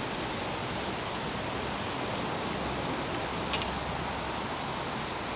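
Steady rushing of a nearby stream, with a short scratchy rustle about three and a half seconds in as twine is wound around the spear shaft.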